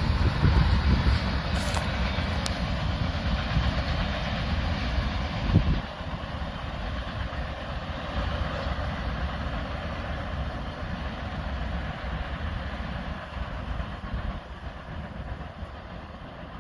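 Freight train passing at speed, its cars rolling by with a loud low rumble. About six seconds in the rumble drops sharply, then fades slowly.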